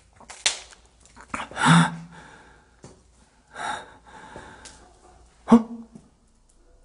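A person's sharp gasping breaths, about four of them a second or two apart, two with a short voiced catch.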